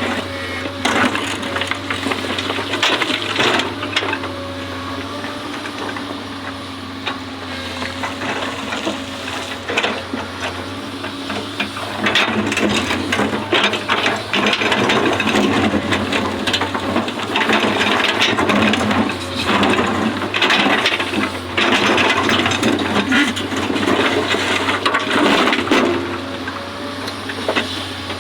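Hydraulic excavator at work: its diesel engine runs steadily under a dense clatter of knocks and scraping. A faint hydraulic whine is heard through roughly the first third.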